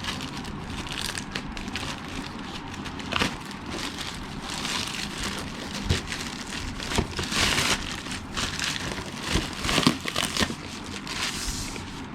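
A parcel's packaging being torn open and handled: steady crinkling and rustling with irregular sharp crackles and snaps.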